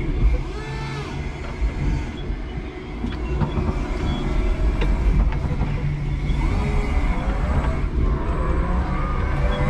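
Electric forklift driving and turning, its motor whine rising and falling over a steady low rumble, with a few light clicks and knocks. The whine climbs again near the end as it speeds up.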